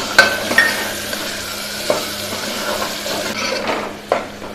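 Chopped tomatoes sizzling in hot oil in a pressure cooker while a spatula stirs them, with a few sharp clinks and scrapes of the spatula against the pot. The sizzle dies down about three seconds in.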